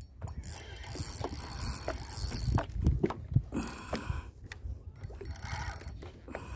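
Spinning fishing reel being cranked, with scattered clicks and knocks over a steady low rumble.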